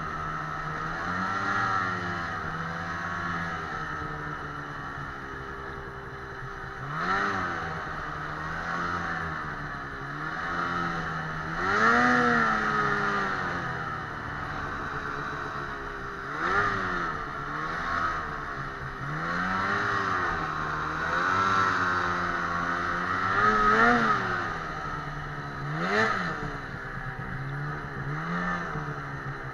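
A Ski-Doo 800R snowmobile's two-stroke twin engine running under way, its pitch rising and falling as the throttle is worked. There are sharp revs about 7, 12, 16, 24 and 26 seconds in.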